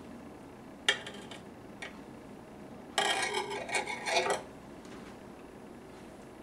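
Kitchen knife clicking and scraping on a glass cutting board while a slice of tomato is cut off: a sharp click about a second in, then a longer run of clatter and scraping about three seconds in as the knife is laid down on the glass.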